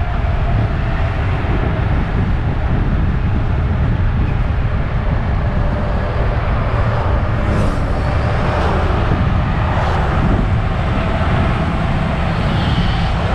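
2019 MAN Lion's City GL articulated bus under way, its engine running with a steady low rumble over road noise.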